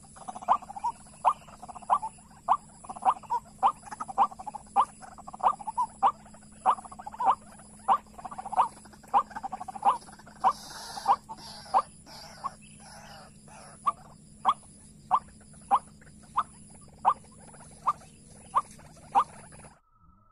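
White-breasted waterhen calling: a long run of evenly repeated croaking notes, a little under two a second, over a steady high-pitched buzz. Everything cuts off suddenly near the end.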